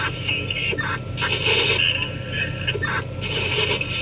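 Diesel engines of a Hitachi EX2500 hydraulic mining shovel and a Cat 777 haul truck running, a steady low hum whose level swells and dips as the shovel works its loaded bucket over the truck.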